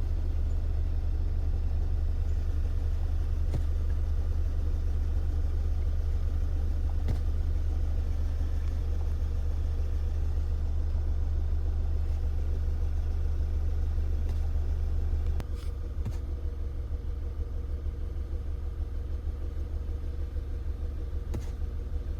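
Volkswagen Tiguan's four-cylinder gasoline engine idling, with a cylinder-4 misfire (code P0304) flashing the check-engine light. A steady low drone drops in level about fifteen seconds in, leaving a lower, more uneven pulsing.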